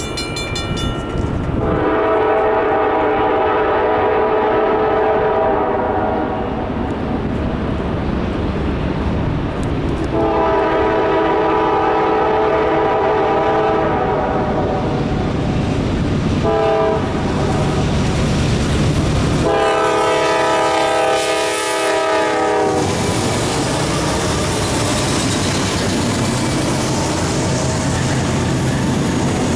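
Horn of a GE Dash 9-40CW diesel locomotive sounding the grade-crossing signal, long, long, short, long, as the train approaches. The train then rolls past, its wheels clattering on the rails.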